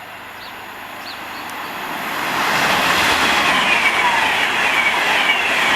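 Class 390 Pendolino electric train approaching and running past, its rush of wheels on rail growing louder over the first couple of seconds and then holding steady. Short falling whines repeat through the loud part.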